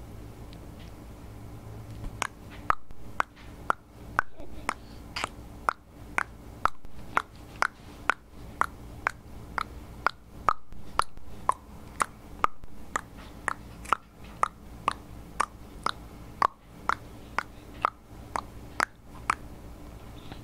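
A long, evenly paced series of sharp clicks, about two a second, starting about two seconds in and stopping near the end.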